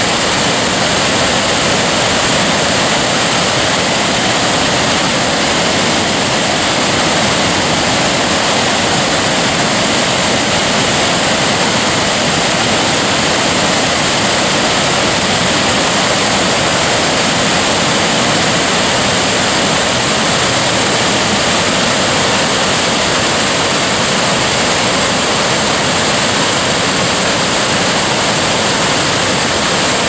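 Water pouring over a wide, low rock-ledge waterfall and smaller side cascades into a shallow pool: a loud, steady rushing.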